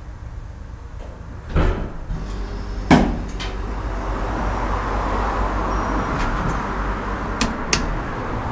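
Deve/Schindler hydraulic elevator with door sounds: a thud about a second and a half in, then a sharp knock as the door shuts. It then goes into a steady, even rushing run as the car travels, with a few light clicks.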